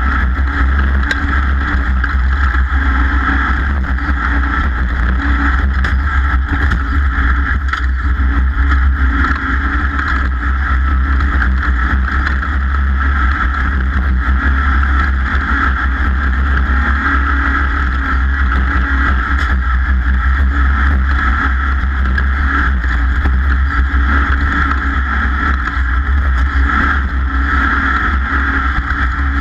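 Racing boat's engine running steadily at speed, the drone holding even throughout.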